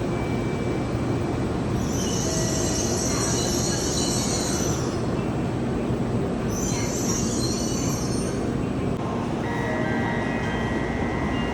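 Shinkansen bullet train running with a steady rushing rumble. A high-pitched sound rises over it twice, first for about three seconds and then for about a second and a half, and a few steady tones come in near the end.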